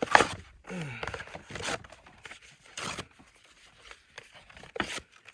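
Cardboard cereal box being torn up for fire kindling: a few short ripping sounds, the loudest right at the start.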